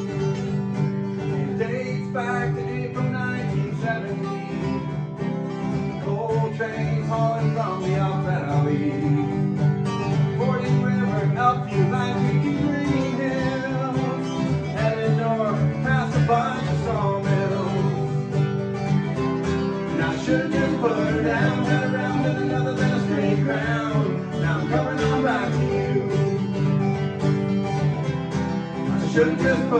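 Instrumental break of a country-style song: an acoustic guitar strumming chords under a hollow-body electric guitar playing a lead line.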